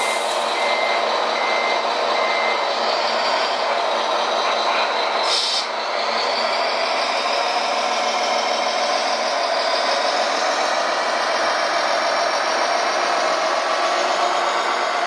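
Reversing beeper of a radio-controlled model truck, about two beeps a second, stopping about two and a half seconds in, over the steady whine of the models' electric drive motors and gearing. A short hiss comes about five seconds in.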